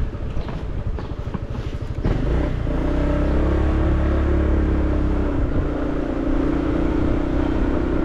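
Car engine and road noise heard from inside a moving car. About two seconds in, the engine note becomes louder and steadier.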